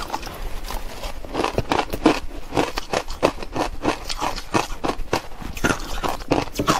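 Green-dyed crushed ice being chewed: a dense run of sharp, irregular crunches.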